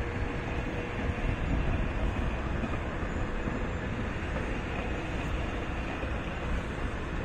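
MARC commuter train of bilevel passenger coaches passing, a steady rumble of wheels on the rails, with wind noise on the microphone.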